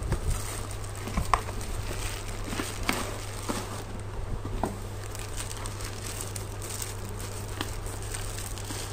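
Plastic bubble wrap crinkling as a wrapped French press is lifted from its cardboard box and handled, with irregular sharp crackles, the loudest about a second and a half in.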